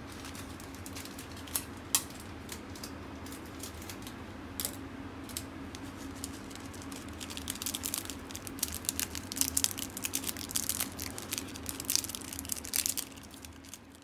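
A steady low hum with scattered sharp clicks, thickening into a dense run of crackly clicking and rustling about eight seconds in, which stops shortly before the end as the sound fades out.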